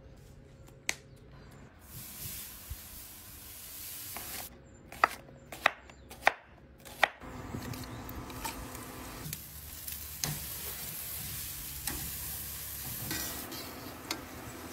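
Four sharp knife strokes on a cutting board, then sliced onions sizzling steadily in hot oil in a stainless steel pan from about seven seconds in.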